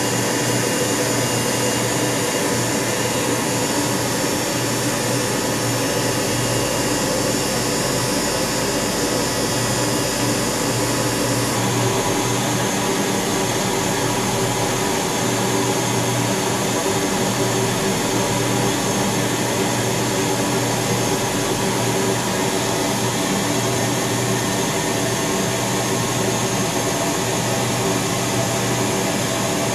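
Steady whine and rush of a military transport aircraft's turbine engines running, heard from inside the cargo hold, with a slight change in the tone about twelve seconds in.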